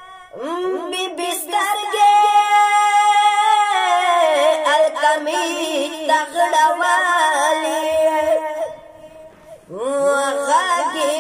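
A boy chanting a Pashto religious poem solo and unaccompanied, in long held melodic lines that slide between notes. He stops for about a second near the end, then resumes.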